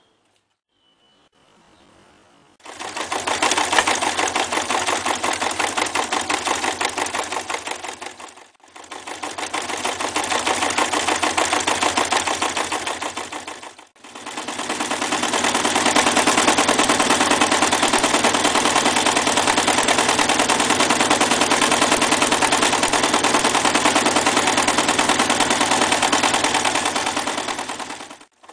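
Reads 300 electric zigzag sewing machine stitching through a leather belt, its needle going up and down in a fast, even rhythm. It starts about two and a half seconds in and runs three times, stopping briefly twice, with the last and longest run going on almost to the end.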